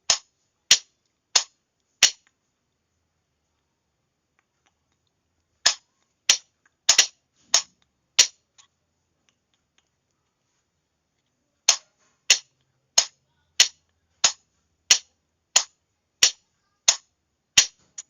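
Sharp single clicks of a Morse signalling key, one about every two-thirds of a second, in runs of four, then six, then ten, with silent pauses between the runs. There is no beeping tone, only the clicks.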